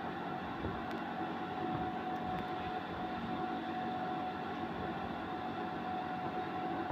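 A steady machine drone with a constant mid-pitched tone running through it, as of a fan or small motor running, with a few faint light clicks.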